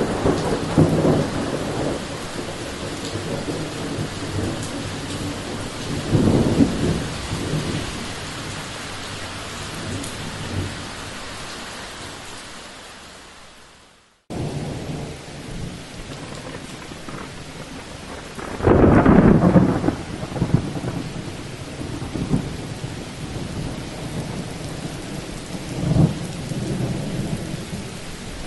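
Thunderstorm: steady rain with rolling thunder, several low peals building and dying away, the loudest about two-thirds of the way through. The sound fades out just before halfway and a new stretch of rain and thunder starts straight after.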